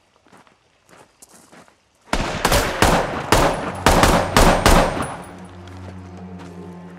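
Footsteps on gravel, then about two seconds in a rapid string of gunshots lasting some three seconds, followed by a low, steady music drone.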